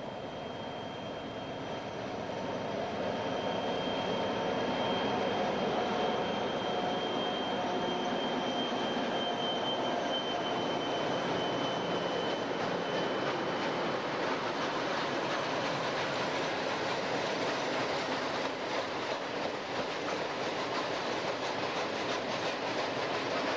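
ST44 (M62 'Gagarin') diesel locomotive, with its two-stroke V12 engine, approaching and passing close by, its note sinking a little as it goes past. It is followed by freight wagons rolling by with a steady clickety-clack of wheels over the rail joints.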